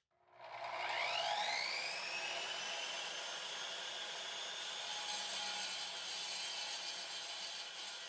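Evolution R300DCT 12-inch electric concrete saw starting up, its whine rising over about two seconds, then running steadily at full speed.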